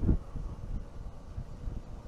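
Wind buffeting on the microphone of a motorcycle under way, a low gusty rumble, strongest in a burst right at the start.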